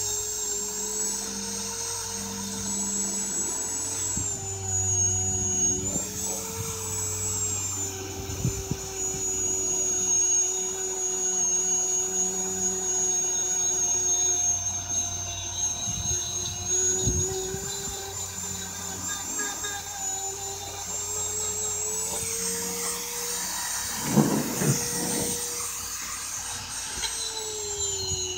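Corded handheld rotary tool running at high speed against the stone of a spiral fossil, a steady high whine. Its pitch sags as the bit is pressed into the rock and rises again about three quarters of the way through, with some scraping grit noise just after.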